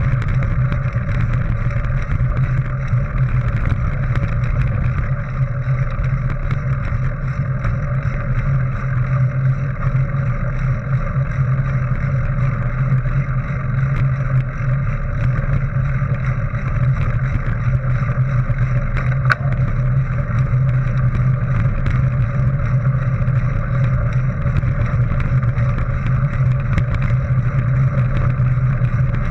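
Mountain bike rolling along a dirt and gravel track: a steady low rumble of wind on the camera and tyre noise, with a light tick about two-thirds of the way through.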